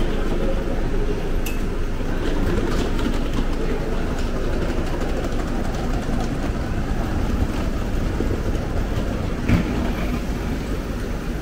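Railway station platform noise beside a standing Frecciarossa high-speed train: a steady low rumble with scattered clicks, and one short sharp sound about nine and a half seconds in.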